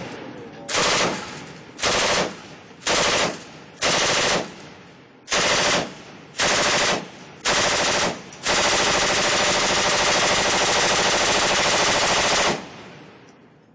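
PKM belt-fed machine gun in 7.62x54mmR firing automatic: a string of short bursts about a second apart, then one long burst of about four seconds near the end.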